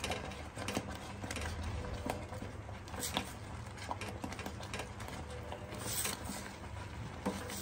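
Ladle stirring thick, simmering phirni in a nonstick kadai: irregular soft scrapes and light taps against the pan, over a steady low hum.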